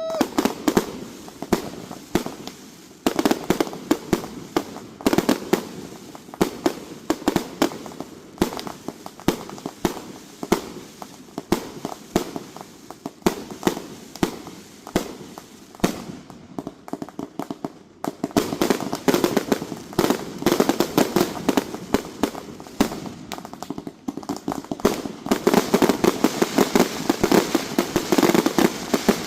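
Multiple consumer firework cakes firing: a long run of rapid shots and bursts, several a second, with brief lulls about 3, 16 and 24 seconds in and the densest barrage near the end.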